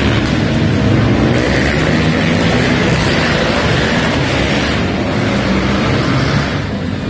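Several four-wheeler (ATV) engines running hard and revving as they race around a dirt track, the sound filling a large indoor arena.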